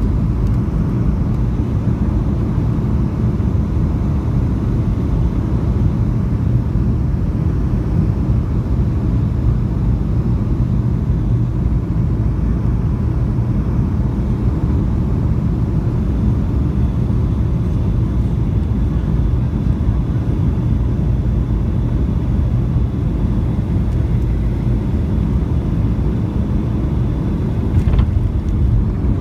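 Jet airliner cabin noise on final approach: a steady roar of the engines and the airflow over the wing, heard from inside the cabin. Near the end comes one brief thump as the main wheels touch the runway.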